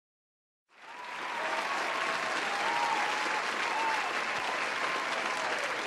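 Crowd applauding, fading in after a brief silence about a second in and then holding steady.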